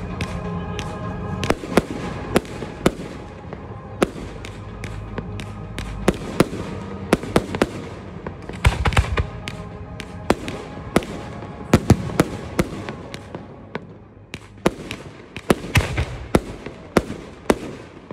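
Fireworks display: a long, irregular series of sharp bangs from shells bursting, several a second at times, with music playing under them that fades out about halfway through.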